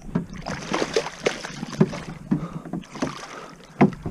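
Water splashing as a hooked snook thrashes at the surface beside a plastic fishing kayak, mixed with a series of short knocks against the hull, the loudest near the end.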